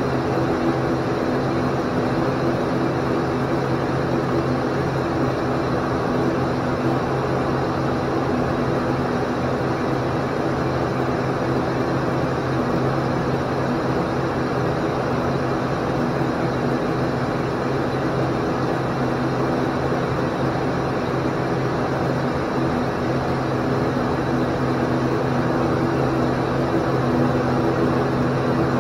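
Steady drone inside the cockpit of an ATR 42-500: its two Pratt & Whitney PW127E turboprop engines and propellers humming at a constant pitch over a rush of air noise, getting slightly louder near the end.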